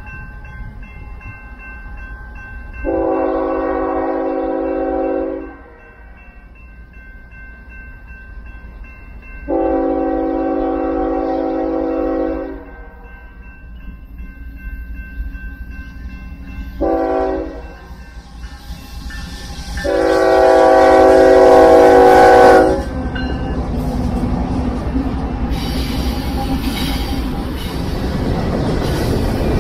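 Union Pacific locomotive horn sounding the grade-crossing signal: two long blasts, a short one and a final long one, the last the loudest. Under the first three blasts the crossing's warning bell rings steadily. After the last blast the rumble of the approaching train grows louder.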